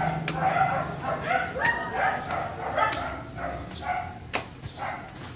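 Small dog yapping repeatedly in quick short barks, about three a second, dying away near the end.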